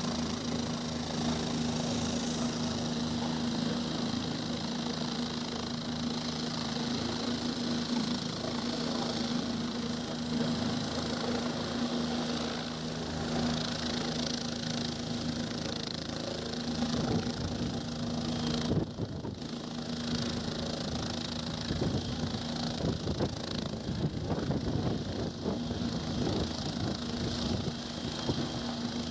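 Four-bladed light helicopter running on the pad with its main rotor turning: a steady engine hum and whine. Past the halfway mark a rapid, choppy low beating of the rotor builds as it lifts off into a low hover.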